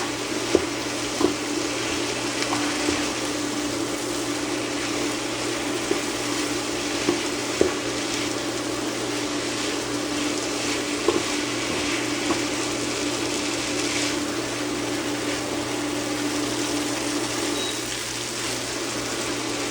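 Steady whooshing of an IKEA Tillreda induction cooktop's cooling fan, with a steady hum that drops out near the end as the cooktop is switched off while the fan keeps running. Metal tongs clink against the pan a few times.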